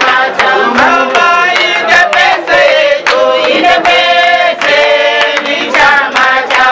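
Voices singing a melody with sharp percussive beats behind them, steady and loud.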